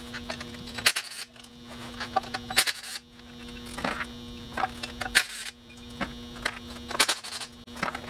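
Cordless impact driver buzzing as it spins out the already-loosened bell-housing bolts of a marine transmission, with sharp clicks and clanks of bolts and tool against the metal casing at uneven intervals.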